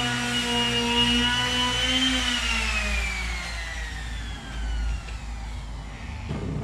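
Small electric sander running at a steady pitch, switched off about two seconds in and winding down with a falling whine over the next few seconds. A short knock near the end.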